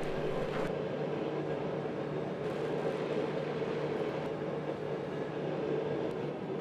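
A machine running steadily, a continuous even drone with a low hum.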